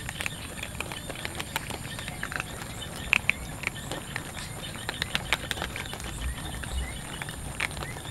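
A group of cats crunching dry kibble together: a dense, irregular patter of quick chewing clicks.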